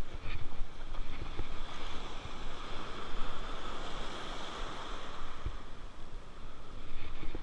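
Shallow surf washing in over the sand, a wave rushing in and swelling in the middle, with wind rumbling on the microphone.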